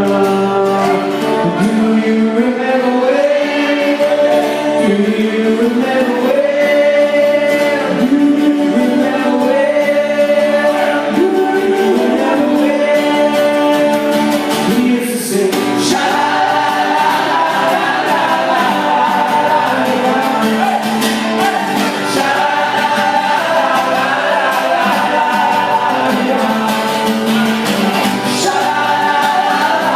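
A group of male voices singing a song together over musical accompaniment.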